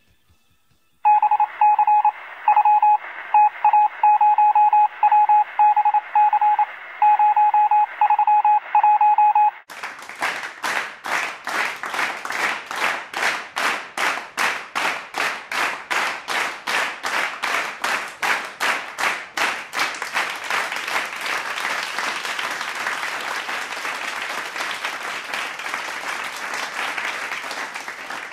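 Electronic telephone tones heard over a phone line: short beeps in uneven groups for about nine seconds, with the thin sound of a phone connection. They stop suddenly and give way to rhythmic clapping, about three claps a second, which swells into steady applause.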